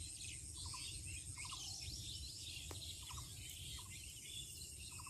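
Several birds chirping and calling at once, with short trilled notes repeating about once a second over a busy chatter of higher chirps, and a low rumble of wind underneath.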